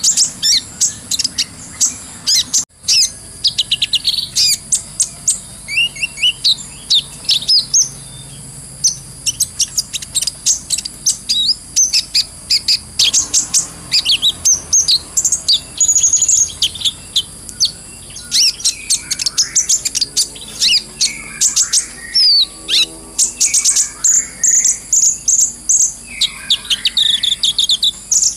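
Kolibri ninja sunbird singing a fast, high-pitched twittering song: rapid strings of short chirps and trills with only brief pauses.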